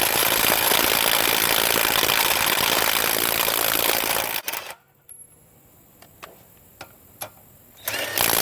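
Cordless 1/2-inch impact wrench hammering on a wheel lug nut, a loud rapid rattle that stops about four seconds in. A few sharp clicks follow, with a short burst of noise near the end.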